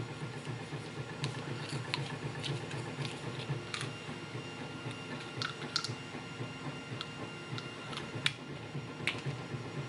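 Scattered small metallic clicks and ticks, a few ringing briefly, from a thin shim and tools being worked into the core of an Abus padlock to gut it, over a steady low hum.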